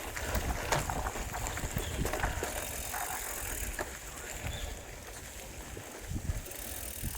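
A bicycle being ridden, with wind rumbling on the microphone and scattered clicks and rattles.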